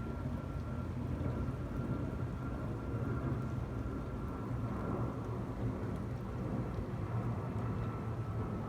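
Jet airliner engines rumbling steadily, with a faint high whine held throughout.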